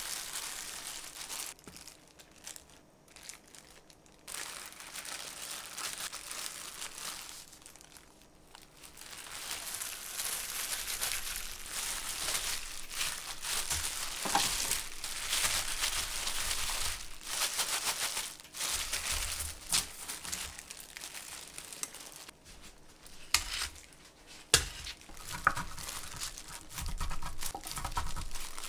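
Crinkling and rustling of something being handled, with two sharp clicks late on.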